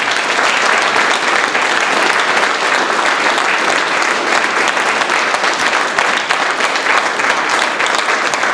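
Audience applauding, a dense and steady run of many hands clapping.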